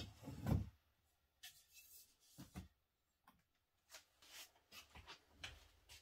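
Handling noises: a soft thump on cardboard about half a second in as an integrated carbon handlebar is set down on a box, then scattered light knocks and rustles as a foam-wrapped carbon road frame is lifted and brought to a work stand.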